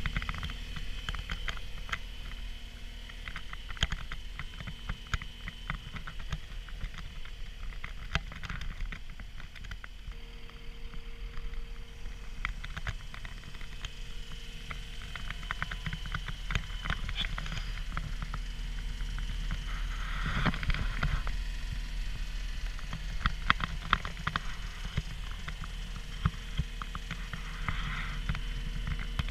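Cat 236D skid steer loader's diesel engine running steadily, with a busy scatter of clicks and knocks over it and a cluster of louder knocks about twenty seconds in.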